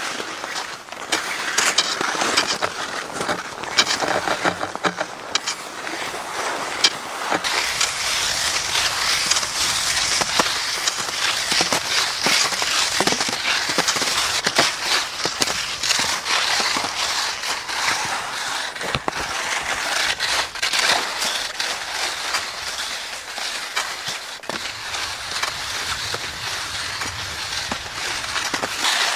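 Skis hissing and scraping over hard spring crust snow, with many short sharp crunches.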